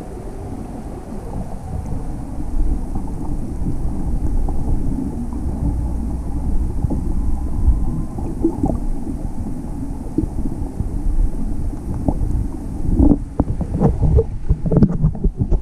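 Underwater recording: a steady low rumble of water moving around the camera, with a run of crackling and knocking in the last few seconds.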